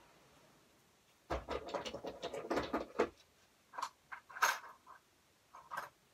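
Closet being worked, rattling and clattering: about two seconds of dense scraping and knocking, then several separate clacks, one every second or so. Super loud.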